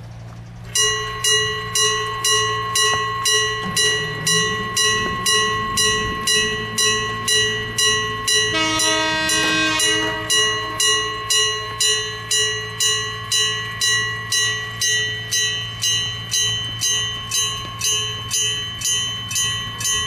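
Gong-type railway crossing alarm, a Daido Signal CA57 from 1989, starting a little under a second in and striking in a steady, even rhythm, each stroke ringing on with clear metallic overtones. About halfway through, a train horn sounds for about two seconds over the gong.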